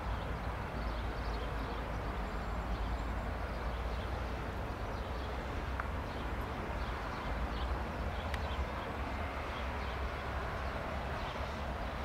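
Airbus A319 airliner's jet engines at low taxi thrust as it rolls slowly after landing: a steady rumble and hiss.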